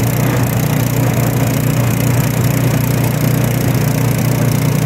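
Branco 5.5 HP single-cylinder gasoline engine running steadily under load, driving a sugarcane mill by belt while a cane stalk is crushed between the rollers.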